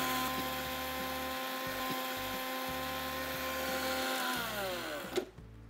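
Preethi Zodiac Cosmo mixer grinder running steadily, dry-grinding roasted urad dal, black pepper and dried red chillies to a fine powder. About four seconds in the motor is switched off and winds down with a falling whine.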